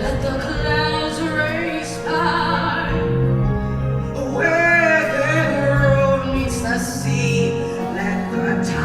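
A musical-theatre song: a singer holding long, wavering notes over a steady instrumental accompaniment.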